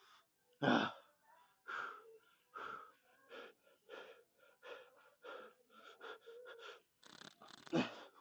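A man breathing hard in short, forceful breaths, about one every half second, as he strains through a heavy weight-lifting set.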